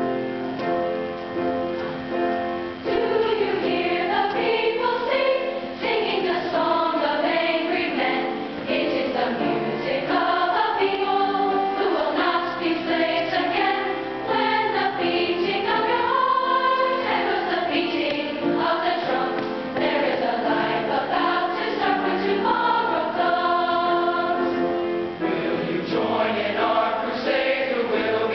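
Large mixed youth choir singing in harmony with piano accompaniment, the melody rising and falling in long, continuous phrases.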